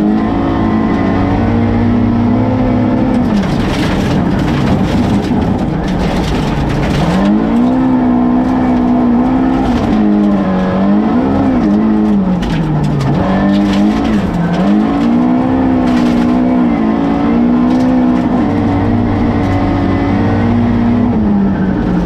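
Rally car engine heard from inside the cabin at full stage pace, revs climbing and dropping sharply several times through gear changes and lifts. Gravel hisses under the tyres and loose stones clatter against the underbody.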